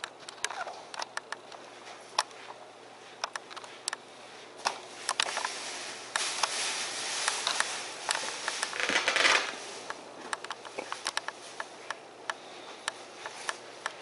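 Handling noise from a handheld camera being carried around a room: scattered light clicks and knocks, with a stretch of rustling about six seconds in that lasts a few seconds.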